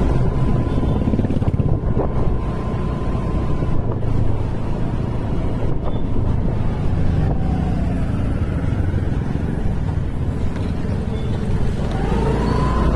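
Steady low engine rumble, with a faint thin tone running over it.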